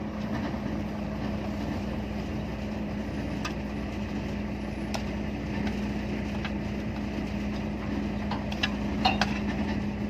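Diesel engines of combine harvesters running steadily while the machines stand still, a constant low hum with a few short clicks.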